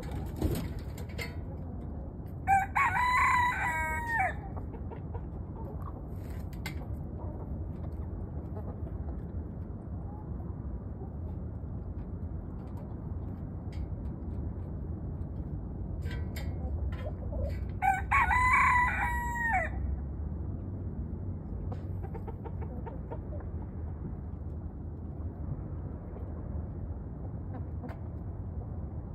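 A rooster crows twice, about fifteen seconds apart, each crow lasting under two seconds, over a steady low background noise.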